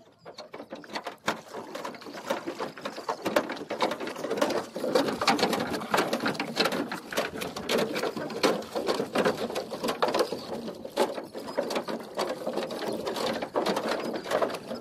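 Wooden rowing boat being rowed: rapid, irregular clicking and knocking of the oars working against the boat, with water splashing at each stroke.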